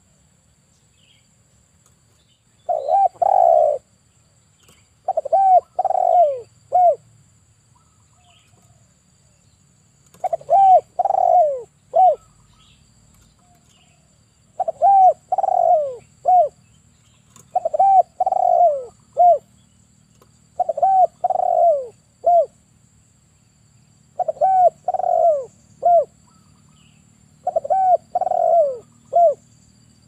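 Male spotted dove cooing in about eight repeated phrases a few seconds apart, each of two or three coos that rise and then fall, ending on a shorter note.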